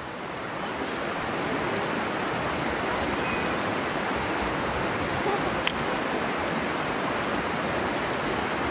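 River water rushing steadily over rocks, a constant even noise, with one faint click about two-thirds of the way through.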